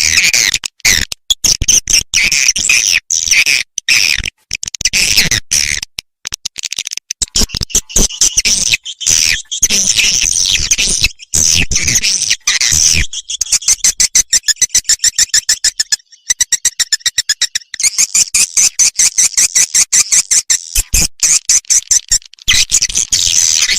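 Swiftlet lure call playback: swiftlet chirps and twitters in dense strings. About halfway through they give way to a long run of fast, evenly repeated clicking pulses.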